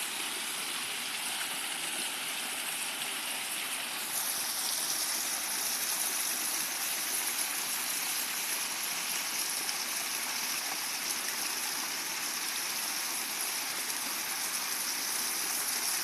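Small rocky stream splashing over boulders in little cascades: a steady rush of water that turns brighter and hissier about four seconds in.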